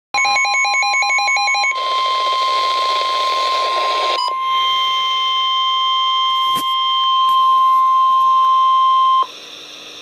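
NOAA Weather Radio receiver sounding a flood warning alert. Rapid pulsing beeps for the first second and a half sit over the steady, high 1050 Hz warning alarm tone, which holds until it cuts off about nine seconds in. A burst of hiss runs under the tone from about two to four seconds.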